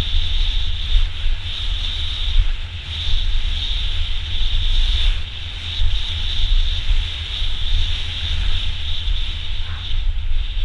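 Mountain bike riding fast down a dirt downhill trail, heard from a camera on the rider. Wind buffets the microphone with a constant rumble, and a steady high hiss of the ride sits over it.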